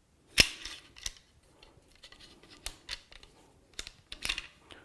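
Rifle bolt being slid into a bolt-action rifle's action and worked, metal clicking and sliding as it carries freshly applied oil along the bolt raceway. There is a sharp click about half a second in, then lighter clicks and scrapes.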